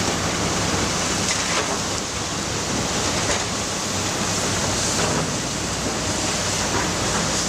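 Excavator's engine running steadily under a broad hiss, with a few faint knocks.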